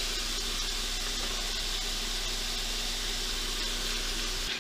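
Raw chicken pieces sizzling in butter and onions in a stainless pan on an induction cooktop at sear heat: a steady hiss that drops off suddenly near the end.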